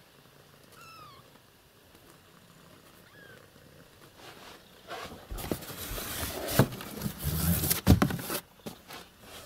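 Newborn kitten mewing faintly, two thin high calls in the quiet first half. From about five seconds in, louder rustling with sharp knocks takes over.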